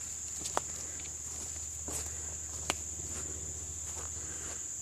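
Steady high-pitched insect chorus, crickets or katydids, with a few light clicks and knocks mixed in.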